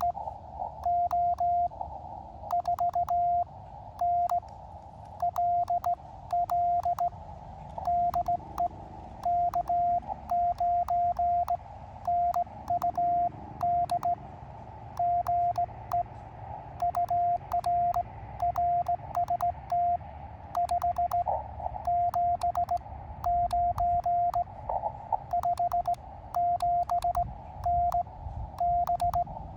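Morse code from an Elecraft KX2 transceiver's sidetone: a steady beep keyed on and off in dots and dashes with a KXPD3 paddle worked as a cootie (sideswiper). Sharp contact clicks come with the keying, over a narrow band of receiver hiss.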